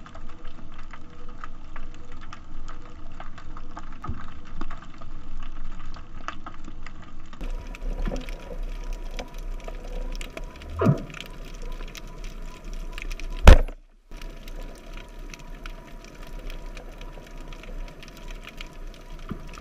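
Underwater ambience picked up by a camera below the surface: a steady, dense crackle of tiny clicks. A short sweeping whoop comes about eleven seconds in, and a single loud, sharp click about thirteen and a half seconds in is followed by a moment of silence.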